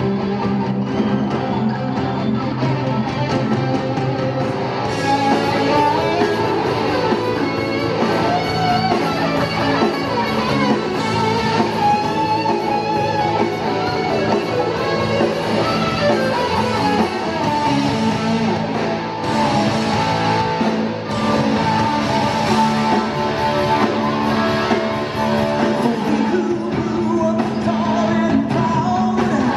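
Live rock band playing in an arena, heard from the crowd: a lead electric guitar solo over drums and bass, with the singer coming back in near the end.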